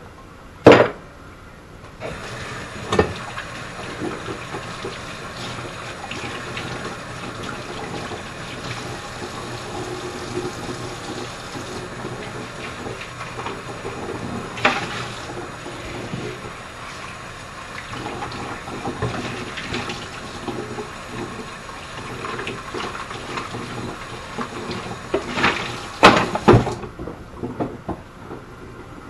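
Kitchen sink tap running while hands are washed under it: the water comes on about two seconds in and is shut off near the end. A few short knocks and clatters from the sink along the way.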